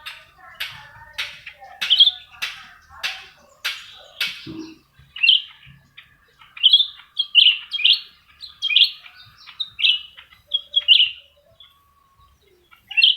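Cucak rante songbirds singing in competition. First comes a run of sharp, harsh notes, about two a second, for roughly four seconds. Then come repeated short whistled notes that slur downward, with a brief pause near the end.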